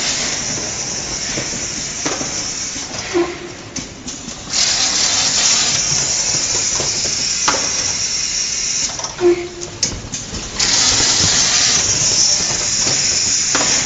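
Automatic case erector and carton sealer running: a loud compressed-air hiss comes in three long stretches of several seconds with short breaks between them, and the mechanism gives a few short clunks.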